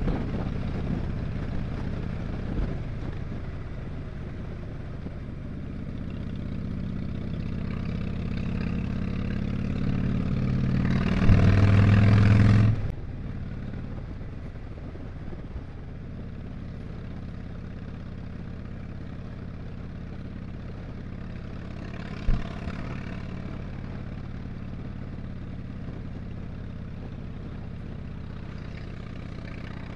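A 2007 Harley-Davidson Dyna Street Bob's Twin Cam 96 V-twin running under way. It grows louder over the first dozen seconds and is loudest for a second or two about 11 seconds in, then drops back to a quieter, steady run. A single sharp knock comes about 22 seconds in.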